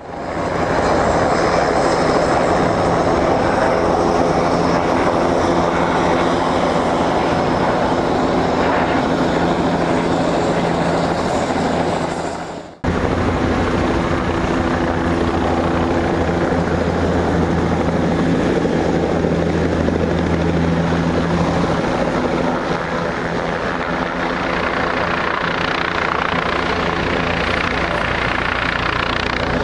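Twin-turbine Eurocopter EC155 helicopter flying in low for a fast rolling landing: a steady rush of turbine and rotor noise, with humming tones from its Fenestron shrouded tail rotor. The sound dips and breaks off sharply about 13 seconds in, then carries on just as loud.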